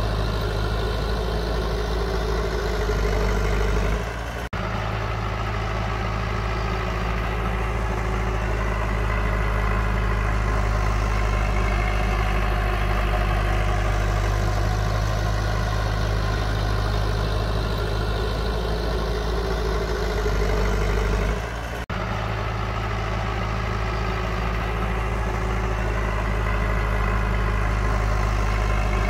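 Heavy construction machine's diesel engine running steadily at a low, even pitch, with two short dips and breaks in the sound, about four seconds in and again about 22 seconds in.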